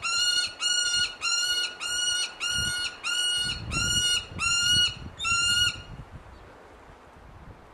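A captive bird calling about ten times in an even series, one short flat-pitched note roughly every half second or so, then falling silent about six seconds in.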